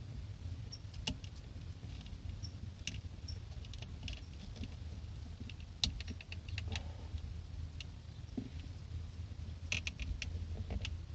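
Small plastic clicks and taps, scattered and irregular, as a car's horn button and its plastic tabs are handled and pushed back into place, over a steady low hum.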